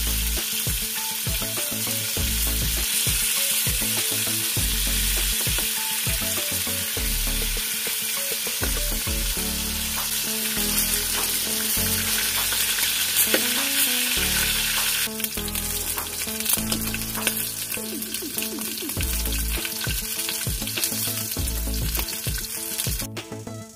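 Pieces of rabbit meat sizzling as they fry in hot cooking oil in a metal wok, with a metal spatula scraping and turning them now and then. The sizzle cuts off suddenly near the end.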